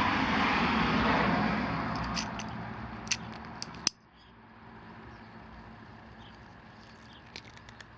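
Steady rushing background noise that fades away, with a few light sharp clicks of steel pliers being handled; a little before halfway it cuts off abruptly to a faint background, with a couple more small clicks near the end.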